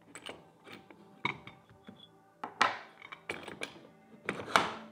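Clicks and knocks of a camera stand's leg being fitted into its base hub, the two loudest about halfway through and near the end, over quiet background music.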